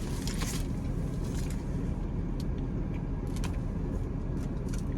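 Low steady rumble of a car, heard from inside the parked vehicle, with scattered short clicks and rustles from someone eating a burger.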